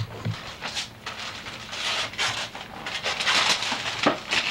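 Irregular rustling and rubbing noises, busier in the second half, over a faint steady low hum.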